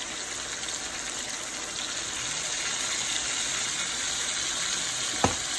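Thin-sliced raw chicken sizzling in hot oil in a frying pan, a steady hiss. A single sharp knock comes near the end.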